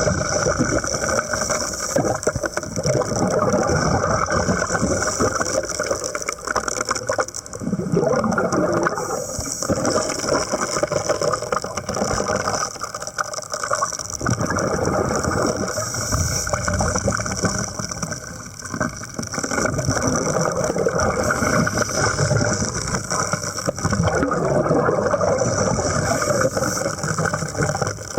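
Continuous rattling, churning underwater noise from hull repair work, swelling and dipping every few seconds, with a steady high whine above it.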